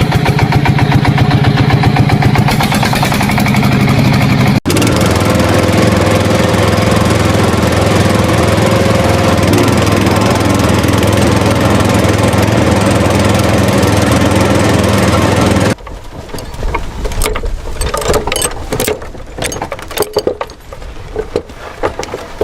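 A small motor running loudly and steadily with an engine-like drone, broken for an instant about four and a half seconds in. It stops abruptly about fifteen seconds in, leaving quieter scattered clicks and rattles.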